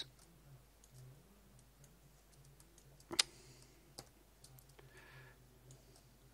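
A few computer mouse clicks over a faint, steady low hum. One sharp click about three seconds in is the loudest, with a softer click about a second later.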